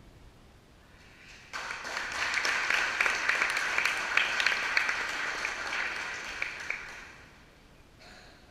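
Audience applauding: a burst of many hands clapping that starts suddenly about a second and a half in and dies away near the end.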